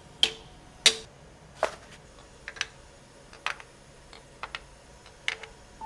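Machined metal parts being handled and set into an inspection fixture: a series of sharp, irregular metallic clicks and knocks, the two loudest near the start, some leaving a brief ringing tone.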